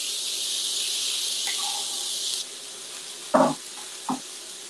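Diced tomatoes sizzling hard in a hot oiled frying pan, a loud hiss of steam that drops to a softer sizzle about two and a half seconds in. Two short louder sounds break in near the end.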